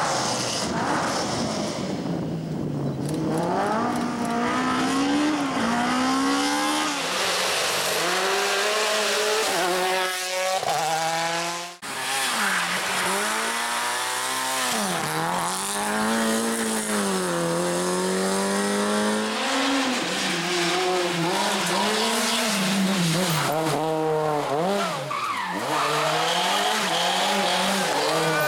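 Small rally cars, a Peugeot 106 and a Citroën C2 among them, passing one after another at full throttle on tarmac stages. Their engines rev up hard and drop back on each gear change or lift, over and over, with a brief break about twelve seconds in between one car's run and the next.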